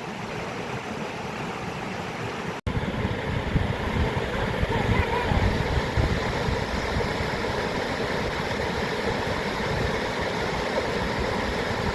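Steady rushing water, an even noise with no distinct events. About two and a half seconds in it cuts out for an instant and comes back louder and deeper.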